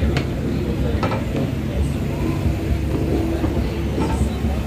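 Steady low rumble of a moving vehicle, with wind on the microphone.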